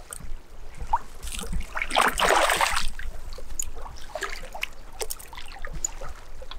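Hooked barbel splashing and thrashing at the river's surface as it is reeled in to the landing net, with one bigger splash about two seconds in.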